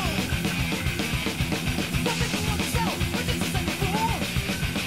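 Fast rock music with a pounding drum kit and electric guitar: the soundtrack laid over the build footage.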